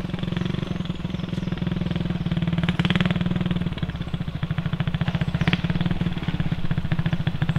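Small old kick-start motorcycle's engine running steadily as a learner rides it in low gear, a fast even pulse that grows a little louder near the end as the bike comes back nearer.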